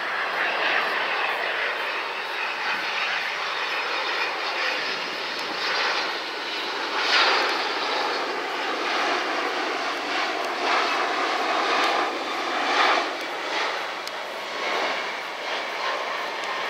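Jet engines of a Boeing 767-300ER airliner on final approach with landing gear down, passing low overhead: a loud, steady rushing jet noise that swells about seven seconds in and again a few seconds before the end.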